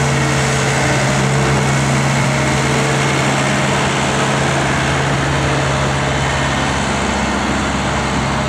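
Diesel engine of a 2003 Cat 226 skid steer loader running steadily.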